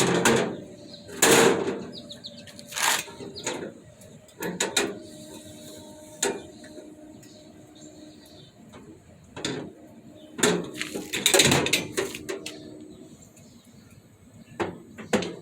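Irregular metal clanks, knocks and scrapes from a smoker's door and grates as pork butts are loaded in. Some strikes ring briefly.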